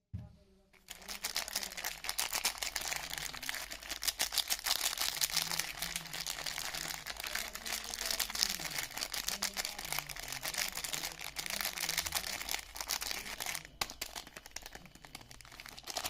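Soap packaging crinkling and rustling continuously as it is handled and unwrapped. It starts about a second in, with a brief lull near the end.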